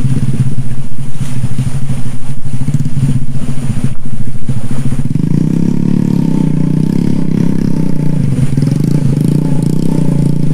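Motorcycle engine of a pannier (obrok) motorbike used for hauling palm fruit, running. It chugs unevenly for about the first five seconds, then settles into a steadier note.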